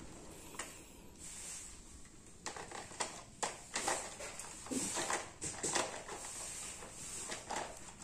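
Hard plastic toy construction vehicles clacking as a toddler handles them over a plastic toy truck's trailer bed: scattered light knocks and clatters, starting about two and a half seconds in.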